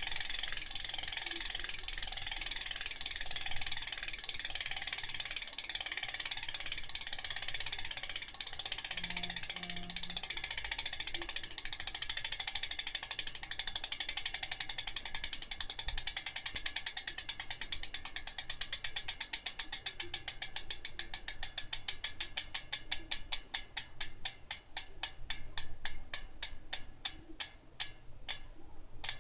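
Freehub ratchet of a 3T Accelero 40 Pro rear hub clicking as the wheel freewheels and spins down. It starts as a fast continuous buzz, then slows into separate clicks spaced further and further apart, and stops near the end.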